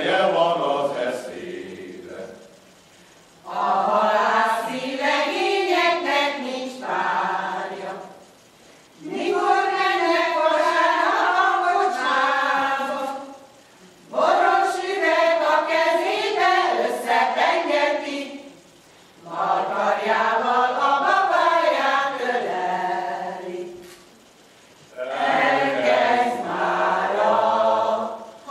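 Mixed choir of women's and men's voices singing a Hungarian folk song unaccompanied, in phrases of about four seconds with short breath pauses between them.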